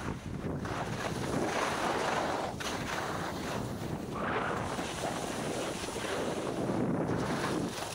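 Wind buffeting the microphone and the hiss of sliding fast over snow, swelling and easing every couple of seconds.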